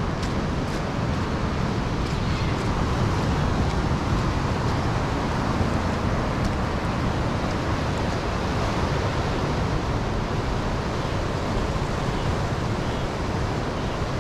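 Wind rumbling on the microphone over the steady wash of ocean surf breaking against a rock jetty.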